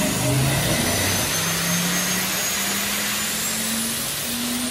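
Single-turbo 427ci LS V8 running on an engine dyno: a steady mechanical roar, with a thin high whine that slowly rises in pitch and a low engine note that creeps upward.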